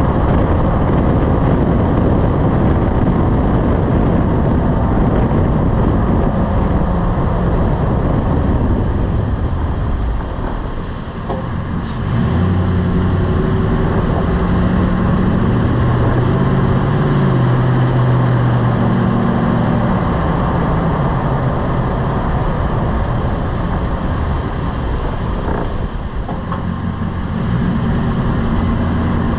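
Lifted pickup truck driving, with steady road, tire and drivetrain rumble and a low hum from the drivetrain partway through. The noise dips twice, and a couple of faint knocks come around those dips.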